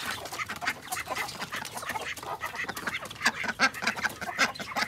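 A flock of chickens clucking, many short calls overlapping.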